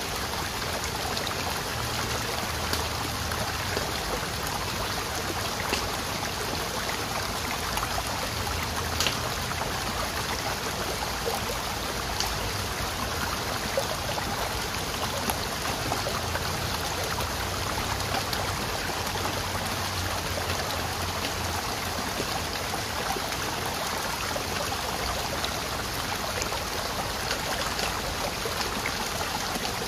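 Small muddy stream running steadily, a constant rush of flowing water, with a few faint clicks, the clearest about nine seconds in.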